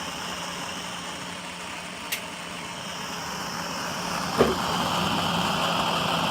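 Gas burner for a model steam boiler burning with a steady hiss over a faint hum. There is a small click about two seconds in and a sharper click about four and a half seconds in, after which the hiss is slightly louder.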